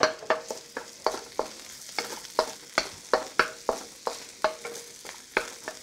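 Wooden spatula scraping and knocking against a wok at about three strokes a second, as chopped shallots and garlic sizzle gently in oil. Some strokes leave a brief faint ring from the wok.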